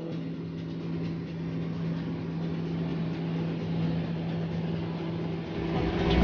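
Tractor engine running steadily as it pulls a walnut sweeper through the orchard, with the drone of the machinery, growing louder with a deep rumble near the end.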